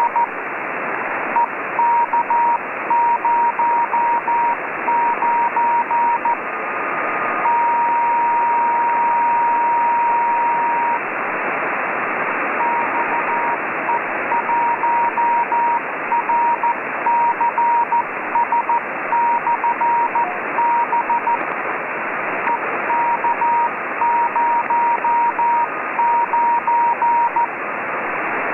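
Morse code from the XE1RCS 10-metre ham radio beacon on 28.183 MHz, received on a Kenwood TS-50 in CW mode as a tone of about 1 kHz keyed on and off over steady band hiss. About a quarter of the way in the keying gives way to one long unbroken tone of a few seconds, then resumes.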